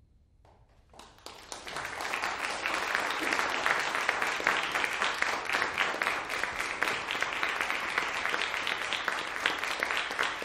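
Audience applauding: after a moment of near silence, the clapping starts about a second in and quickly builds to steady applause.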